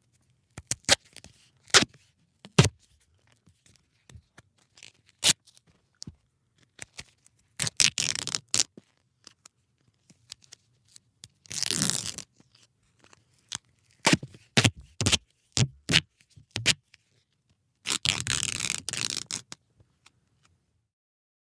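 Duct tape being pulled off the roll and ripped: sharp snaps and crackles, with three longer tearing rips of about a second each.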